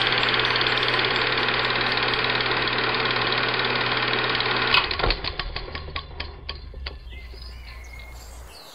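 Film projector running with a steady mechanical whirr and hum, then switched off about five seconds in: a click, then a clatter of ticks that slows and fades as it runs down.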